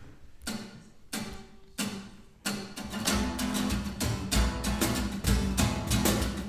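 Acoustic guitar opening a song: three single strummed chords spaced a little over half a second apart, then from about two and a half seconds in a steady, rhythmic strumming pattern with a low beat underneath.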